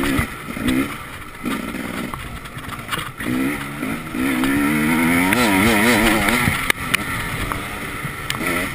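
Enduro motorcycle engine being ridden hard, its revs rising and falling with throttle and gear changes and wavering rapidly about five to six and a half seconds in, where it is loudest. A few sharp knocks from the bike hitting bumps.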